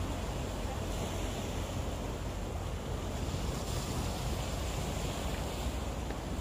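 Sea waves washing against a rocky shore, with steady wind buffeting the microphone as a low rumble.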